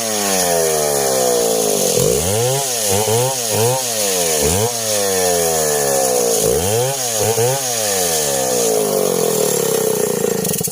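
Two chainsaws running together and cutting coconut palm wood, their engine pitches rising and falling over and across each other as the saws bog under load and rev back up. The sound cuts off at the very end.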